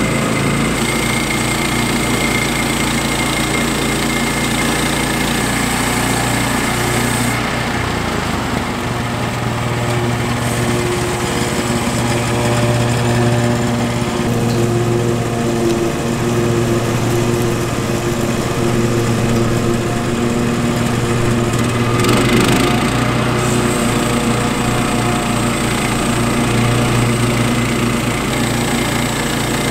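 Gas engine of a Woodland Mills HM122 portable bandsaw sawmill running steadily, its note changing about seven and a half seconds in and again around twenty-two seconds in.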